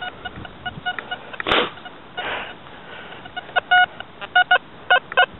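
XP ORX metal detector's target tone beeping in short, irregular bursts as its coil is swept over a dug hole, signalling a metal target there; the beeps get louder and come in quicker runs near the end. A single sharp knock comes about a second and a half in.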